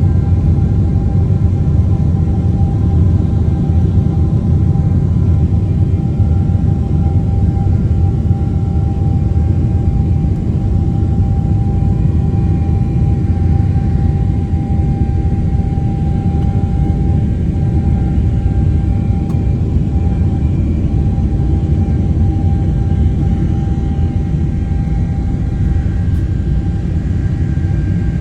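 Cabin noise of a jet airliner during takeoff: a loud, steady low rumble from the engines at takeoff power, with a steady thin tone running above it.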